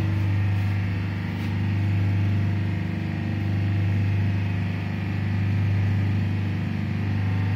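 Steady low hum of ship's engine-room machinery running, with a slow swell in loudness about every two seconds.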